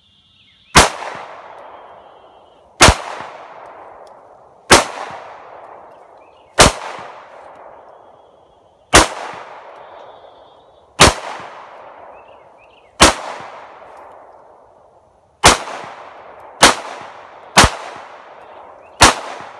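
Eleven single shots from a semi-automatic handgun. Each sharp crack is followed by an echo that dies away over about a second. The shots come about two seconds apart, then more quickly near the end.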